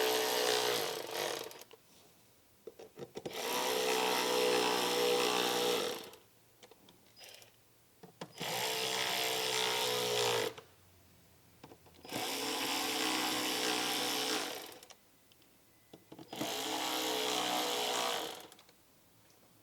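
Power driver with a T25 Torx bit running down screws in five separate runs of two to three seconds each, with a steady motor whine. The screws are being tightened one after another in a cross pattern.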